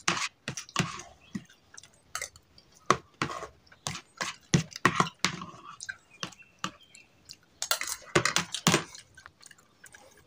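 Metal spoon and fork scraping and clinking on a plate as the last scraps of fried noodles are gathered up, mixed with close-up chewing and mouth sounds. The clicks come irregularly, in short clusters.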